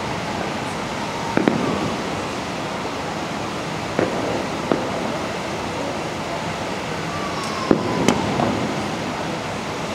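Aerial fireworks bursting in a steady background hiss: six sharp bangs, a pair about a second and a half in, single bangs near four and five seconds, and another pair about eight seconds in. A short falling whistle comes just before the last pair.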